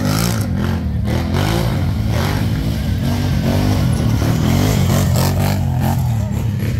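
ATV engine running hard, its revs rising and falling again and again.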